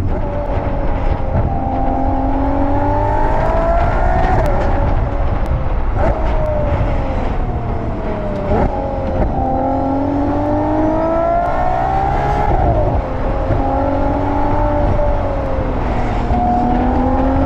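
Ferrari 12Cilindri's 6.5-litre naturally aspirated V12 pulling hard through the gears. Its pitch climbs and then drops sharply at each upshift of the 8-speed dual-clutch gearbox, several times, with stretches of falling revs between.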